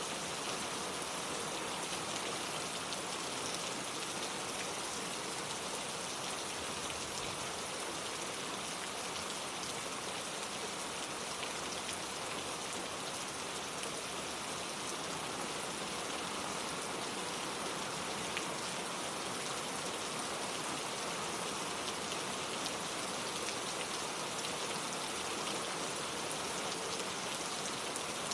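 Steady rain falling: an even, unbroken hiss of many drops, with small individual drop ticks scattered through it.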